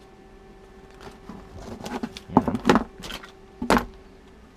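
Cardboard box and plastic packaging rustling and scraping as hands rummage through it. There are a few sharper crinkles and knocks between about two and four seconds in.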